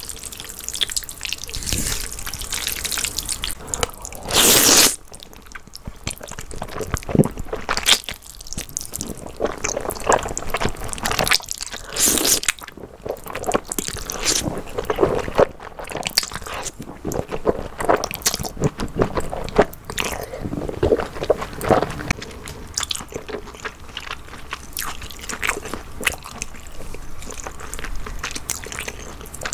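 Close-miked eating sounds: jjajangmyeon black bean noodles being slurped and chewed, with wet, sticky mouth clicks throughout. The loudest is one long slurp about four seconds in.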